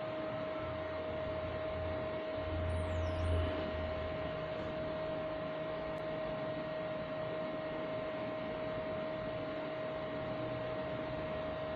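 Homemade mini CNC laser engraver running, with a steady high whine over a hum.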